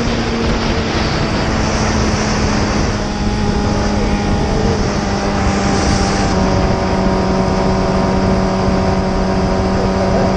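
Suzuki GSX-R750's inline-four engine running steadily at highway cruising speed under heavy wind rush on the microphone. The engine note drops slightly about six seconds in.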